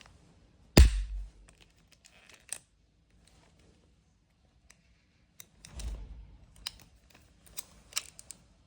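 Steel tape measure being handled: one sharp loud click about a second in, then scattered lighter clicks and a brief rattle.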